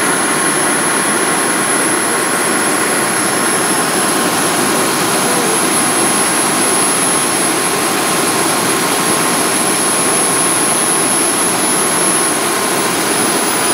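Kerosene-fired model gas turbine in a 5-inch gauge GT3 locomotive running, a steady jet-like roar with a high whine. Near the end the whine begins to drop in pitch.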